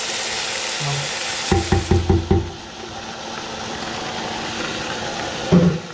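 Drained pigeon peas sizzling in hot oil in a frying pan, with a quick run of about five knocks from the pan and utensil about a second and a half in, after which the sizzle is quieter; another knock comes near the end.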